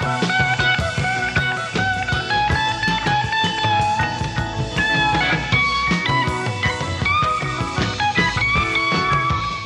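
Live rock band playing an instrumental passage: a lead electric guitar holds long notes that step up and down, over rhythm guitar and drums.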